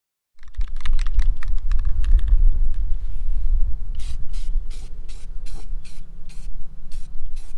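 Rust-Oleum aerosol spray can being sprayed in short hissing bursts, about two a second, from about four seconds in. Before that, a low rumble with a rapid rattle over the first two seconds.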